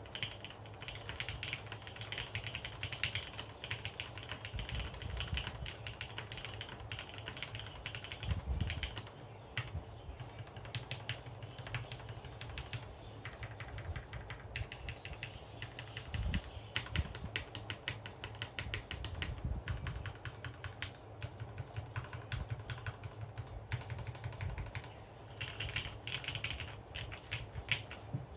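Typing on a custom mechanical keyboard with linear Cherry MX Hyperglide Black switches (65 g springs), a carbon fibre plate and GMK keycaps, set on a bare desk: a steady stream of keystrokes with quick flurries and a few heavier, deeper thuds.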